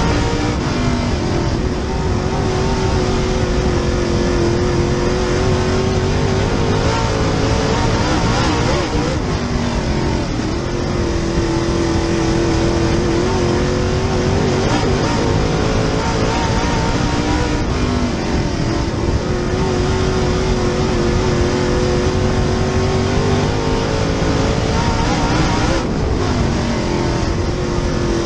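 Super Late Model race car's V8 engine heard from inside the car, running hard. About every eight seconds it eases off briefly and then climbs back up, as the driver lifts for the turns and gets back on the throttle each lap.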